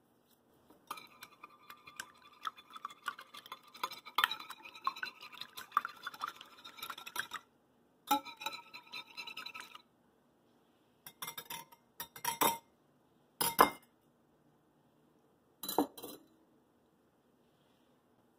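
Wire balloon whisk beating eggs and milk in a glass bowl: fast, continuous clinking of the wires against the glass, which rings. The whisking pauses about halfway, then comes back as a few short, separate bursts of clinks near the end.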